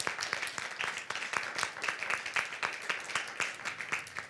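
Audience applauding: many hands clapping densely and unevenly, which dies away near the end.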